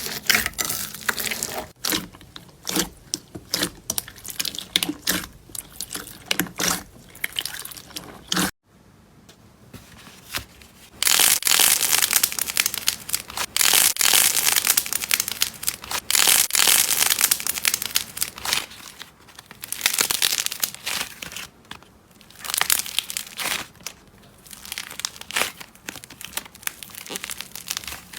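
Slime being squeezed and pressed by hand, giving runs of quick crackles and pops. There is a brief silence about eight seconds in, then a louder, denser stretch of crackling.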